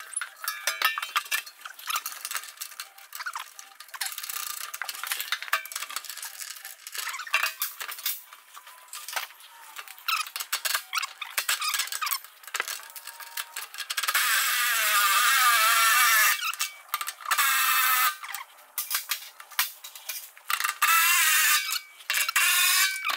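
Steel bolts and hand tools clicking and clinking as the hydraulic tank's mounting-strap hardware is fitted and tightened, with a cordless power tool running in two bursts, about 14 and 21 seconds in, its whine wavering in pitch.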